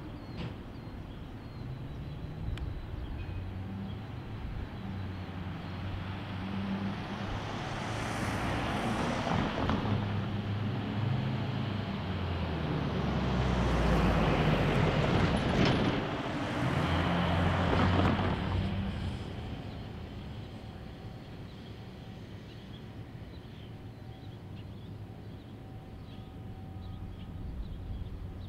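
Diesel locomotive engine running, a low hum whose pitch shifts in steps. A louder rushing swell builds in the middle, peaks twice and fades away again.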